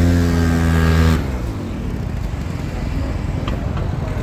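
Motor scooter engine running close by, its pitch rising a little and then holding steady before cutting off abruptly about a second in. After that, steady street noise with a few light clicks.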